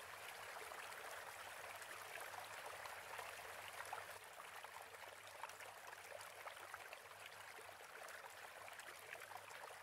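Faint, steady running-water hiss, like a trickling stream, with a low hum underneath.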